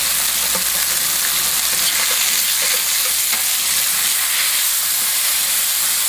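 Chicken cutlets searing in hot olive oil in a stainless steel sauté pan: a steady, even sizzle. A few light clicks of metal tongs on the pan as the pieces are moved.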